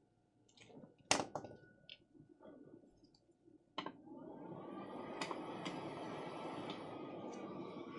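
A few light clicks and taps of tools on the bench, then about four seconds in a hot air rework station starts blowing, a steady rush of air, to reflow the chip's solder balls with flux.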